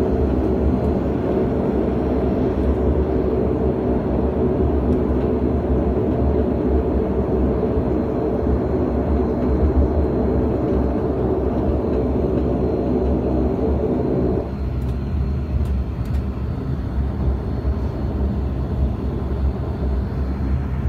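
Cabin drone of a Dash 8 Q400's two Pratt & Whitney PW150A turboprop engines and propellers while the plane taxis. About fourteen seconds in, the mid-pitched hum drops out suddenly, leaving a lower rumble.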